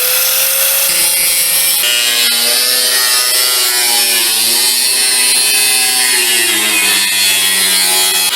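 Cutoff wheel grinding through new sheet steel in a continuous cut. Its motor tone dips in pitch around the middle and sags toward the end as the wheel bites under load.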